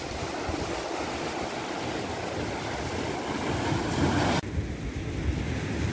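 Ocean surf breaking and washing over shore rocks, a steady rushing hiss with wind buffeting the microphone. About four and a half seconds in the sound cuts abruptly to a quieter, duller wash.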